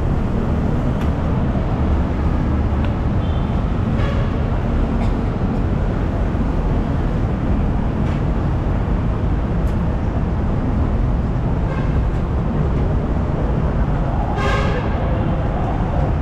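Steady rumble of city street traffic, with a short high-pitched honk-like tone near the end.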